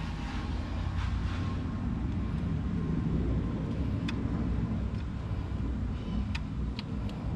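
A few faint clicks and handling sounds as a car-speaker wiring connector is plugged in, over a steady low rumble of background noise.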